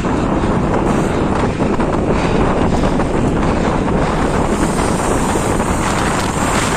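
Steady, loud wind buffeting the microphone of a camera riding along on a moving mountain bike.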